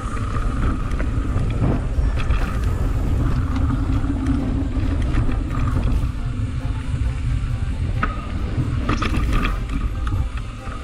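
Mountain bike riding over a dirt and rock trail, heard on a GoPro: a steady rumble of wind and tyres on the ground, with rattling knocks from the bike, several of them close together near the end.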